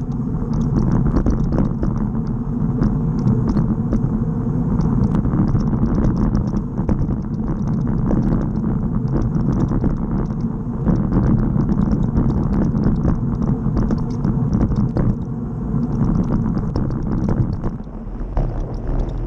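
Road bike rolling over rough, cracked asphalt, heard through a bike-mounted camera: a steady low rumble from the tyres with constant small rattles and clicks. The rumble eases briefly near the end.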